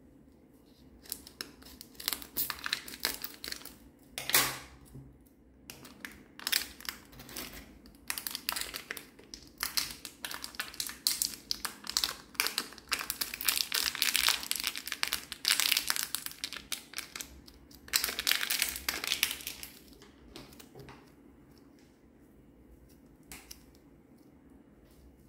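Plastic packet of white clay being crinkled, torn open and squeezed by hand: a long run of dense crackling crinkles, loudest in the middle, dying away to a few faint crackles over the last few seconds.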